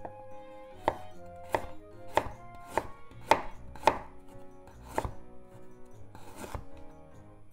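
Chef's knife slicing raw ginger on a wooden cutting board: about eight crisp chops, a little over half a second apart, each one the blade going through the ginger and knocking the board.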